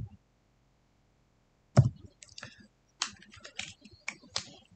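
Two low knocks, the first at the very start and the second just under two seconds in, then a quick run of small clicks and scratchy ticks.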